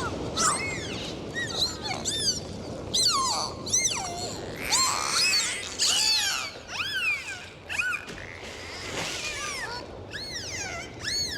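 Dolphins whistling: many short whistles that arch up and down in pitch, several overlapping at once, over a steady hiss.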